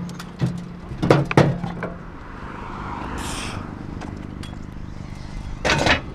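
A series of sharp knocks and thunks in the first two seconds, over a low steady hum. A short hiss comes a little past the middle, and a quick burst of clatter near the end.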